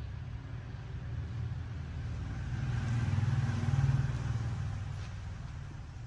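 A motor vehicle passing by: a low engine rumble that grows louder to a peak about halfway through, then fades away.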